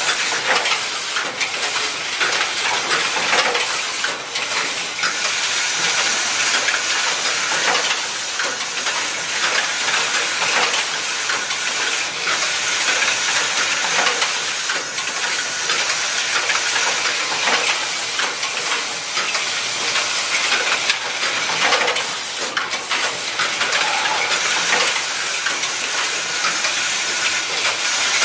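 Automatic junction-box assembly machine running: its vibratory bowl feeders keep up a steady hissing rattle of small metal parts, with irregular short clicks and clacks from the machine's moving mechanisms.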